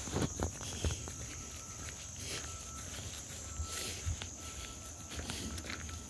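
Footsteps brushing through marsh vegetation, with a few heavier steps in the first second, over a steady high-pitched late-summer insect chorus. A faint short note repeats about every two-thirds of a second.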